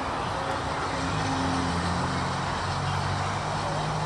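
Small steam tank locomotive running toward the listener with its coach, working steadily with a low hum under a broad rushing noise.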